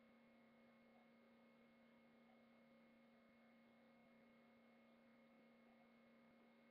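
Near silence: only a faint, steady electronic hum with a few unchanging tones over low hiss.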